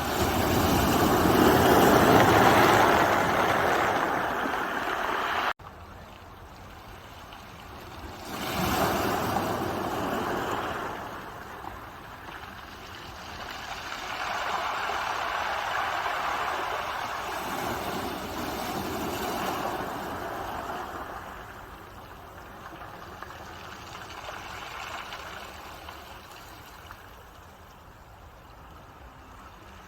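Ocean waves surging and washing in, rising and falling in swells a few seconds long. The level drops abruptly about five seconds in, then more swells follow, fading toward the end.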